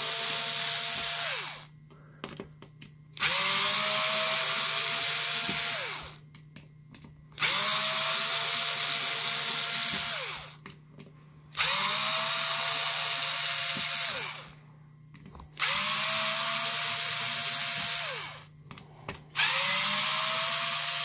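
Small cordless power screwdriver backing screws out of a plastic housing, one after another: six runs of about three seconds each. In each run the motor's pitch rises as it spins up, holds steady and drops as it stops, with short pauses and small clicks between screws.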